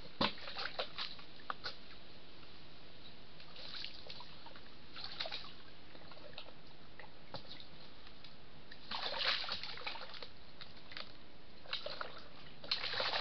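A European badger splashing about in a shallow plastic tub of water: scattered bursts of sloshing and dripping, the biggest about two-thirds of the way through and again at the end, over a steady hiss.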